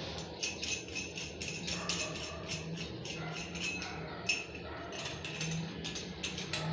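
Small metal lavatory drain fittings clinking and jingling in the hands as they are handled, in many quick, irregular clicks.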